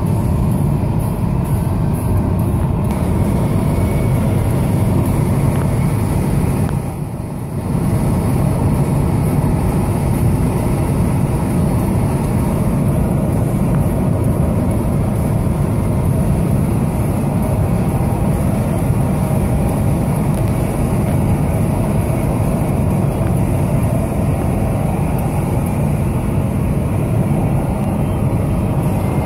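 Steady road noise inside a moving car's cabin: tyre, engine and wind noise at highway speed. It drops briefly about seven seconds in.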